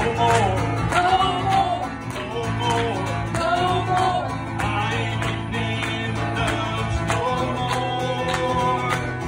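A man singing a country gospel song to his own strummed acoustic guitar.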